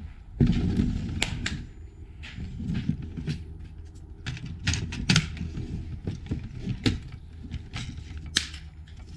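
Metallic clicks and clatter of an AR-15 rifle being handled on a wooden bench, a magazine going in and the rifle being readied, with a dozen or so sharp knocks spread irregularly through it.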